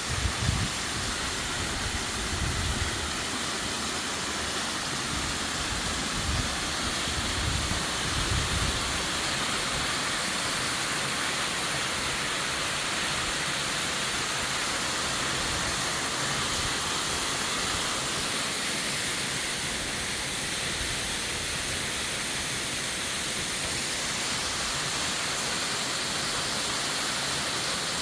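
Waterfall: a steady rush of falling water. Irregular low rumbles come through during the first nine seconds or so, then the rush goes on evenly.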